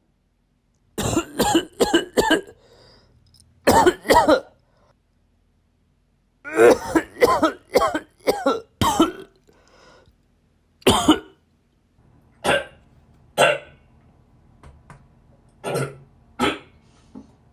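A person coughing in fits. Four quick coughs come about a second in and two more near four seconds. A longer fit of about six follows between roughly seven and nine seconds, then one at eleven seconds. After that come fainter, spaced-out single coughs.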